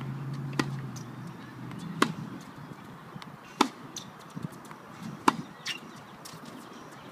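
Tennis balls struck with a racket in groundstroke practice: four sharp pops about one and a half seconds apart, with fainter knocks in between.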